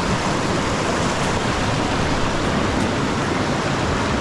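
Steady rushing of river water running over rocks and rapids.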